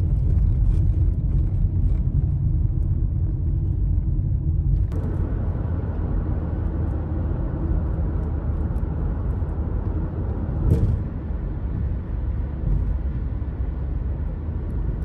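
Steady low road and engine rumble inside the cabin of a moving Toyota car. There is a short louder surge about eleven seconds in.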